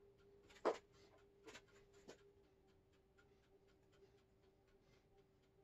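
Faint taps and clicks of small cut-out letters being handled and pressed into place on a sign board: one sharper tap a little under a second in, two softer ones shortly after, then scattered light ticks over a faint steady hum.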